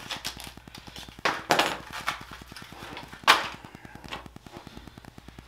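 A handful of sharp clicks and knocks from small plastic parts and metal tweezers being handled on a desk mat, the loudest about three seconds in.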